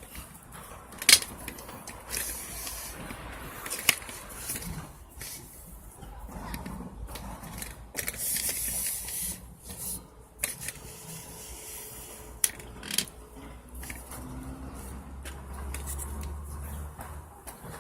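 Stiff brush scrubbing gel degreaser over an engine: irregular spells of hissy bristle scrubbing, broken by a few sharp knocks of the brush against the engine.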